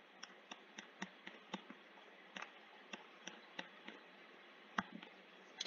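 Faint, irregular taps and clicks of a stylus pen on a tablet screen during handwriting, with one sharper tap near the end.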